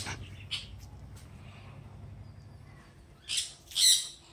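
Mostly quiet with a faint bird chirp, then two short scuffling bursts a little over three seconds in, from a Pomeranian wriggling and mouthing a hand on dry leaf-strewn ground.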